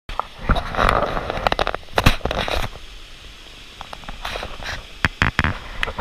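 Mountain stream rushing over rocks, mostly covered by rumbling and knocks on the microphone. The knocks are heaviest in the first three seconds and come again about five seconds in.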